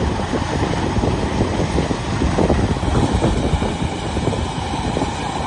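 Kubota combine harvester running under load as it cuts rice: engine and threshing machinery making a steady, dense rattling clatter.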